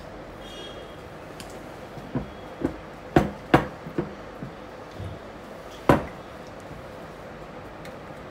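Silicone spatula stirring thick cake batter in a glass bowl and knocking against the glass. A run of irregular sharp knocks starts about two seconds in, loudest around three seconds and again near six seconds, over a steady low hum.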